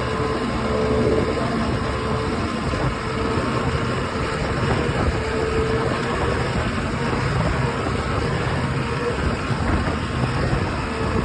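Boat engine running with a weird grinding noise over it, and a tone that swells and fades every couple of seconds. Spark plugs, compression and prop slip have been ruled out as the cause.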